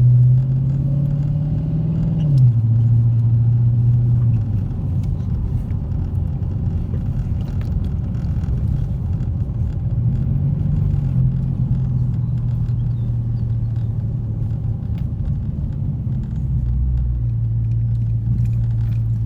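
Dodge Challenger R/T's V8 engine and exhaust droning inside the cabin while driving, the note rising then dropping back about two seconds in and lifting again later.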